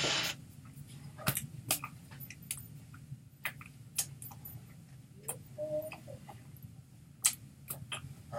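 Scattered soft clicks and taps of hands striking each other and the clothing during American Sign Language signing, over a faint steady low hum, with a short tone a little past halfway.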